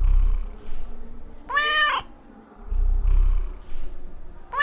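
Domestic cat purring loudly in two stretches, each followed by a short meow that rises and then falls in pitch: one meow about a second and a half in, the other near the end.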